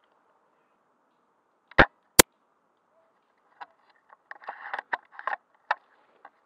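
Snow Wolf M24 spring-powered airsoft sniper rifle firing: two sharp cracks less than half a second apart about two seconds in, followed by a scattered run of quick clicks and rattles.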